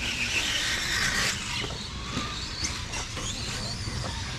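Electric RC stadium trucks racing on dirt: brushless motors whining up and down in pitch as they speed up and slow down, with scattered clicks and knocks from the trucks on the track.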